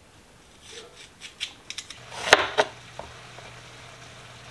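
Kitchen knife cutting through bell pepper on a plastic cutting board: a few crisp cuts and snaps, the loudest two close together a little past the middle, over a faint steady low hum.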